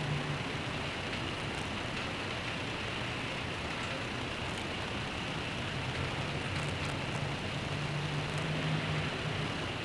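Steady rain hiss with traffic in the background; a low engine drone from a passing vehicle swells in the second half and fades near the end.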